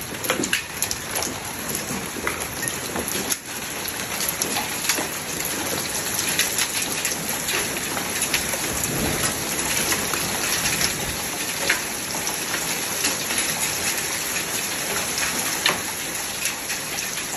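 Hail and heavy rain hitting a roof overhead: a steady rush of rain dotted with many sharp ticks of hailstones striking.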